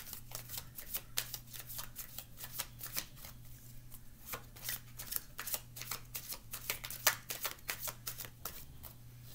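A tarot deck being shuffled by hand: a quick, irregular patter of cards slapping and sliding against each other, several a second without a break.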